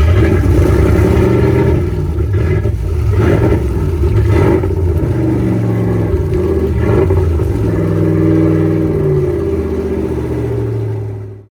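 The Shamrock boat's inboard 350 V8 engine running, with its throttle blipped several times so the engine note rises and falls between revs.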